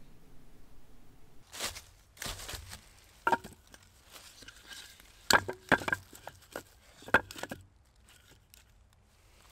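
Short lengths of firewood knocking against each other as they are set down and stacked by hand: a string of sharp wooden clacks a second or so apart, with some scraping and rustling of dry leaves between them.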